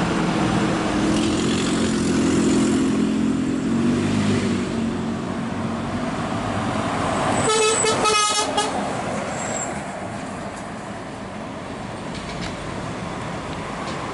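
Scania truck's diesel engine running as it comes up the highway and passes close by. A quick series of horn toots sounds as it goes past, about eight seconds in, then tyre and road noise fades as it moves away.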